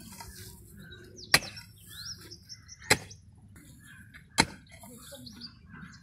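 A pickaxe struck into the ground three times, steady blows about a second and a half apart, while digging soil by hand. Birds chirp between the strikes.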